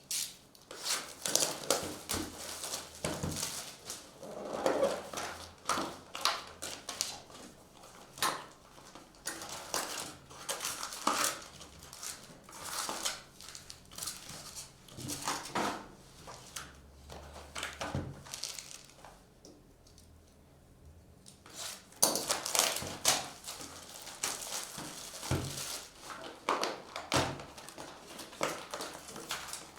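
Hands opening sealed trading-card hobby boxes and packs: irregular rustling of wrapper and cardboard with frequent clicks and taps, easing off into a few seconds of quiet past the middle before the handling picks up again.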